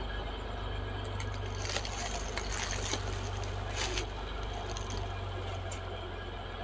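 Caterpillar D6R XL bulldozer's diesel engine running with a steady low rumble, with louder noisy scraping about two seconds in and again about four seconds in.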